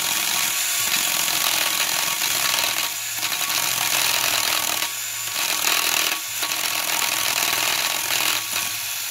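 A variable-speed Makita hand drill drives a case-boring cutter that cuts aluminium from a GY6 150cc (157QMJ) scooter engine case to widen the cylinder opening. It makes a steady grinding, scraping whir that dips briefly a few times.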